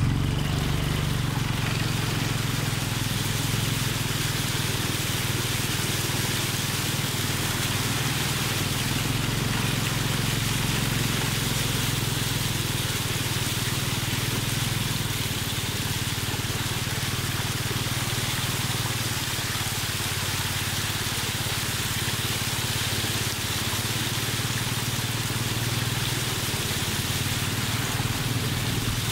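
Small motorbike engine running at a steady low speed, with the steady wash and swish of shallow floodwater pushed aside by the wheels.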